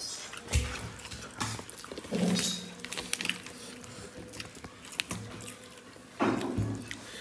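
Eating rice and curry by hand from plates: chewing, fingers working the rice against the plate, and scattered small clicks of tableware, with a louder clatter a little after six seconds.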